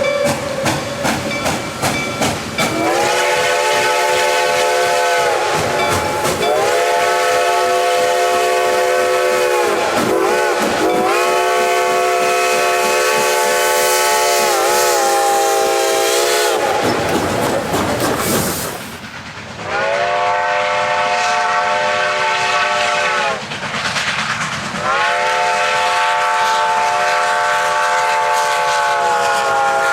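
Reading & Northern 2102's steam whistle blown in five long blasts. Each blast slides up in pitch as it opens and sags as it closes. Steady steam hiss and rapid chuffing run beneath.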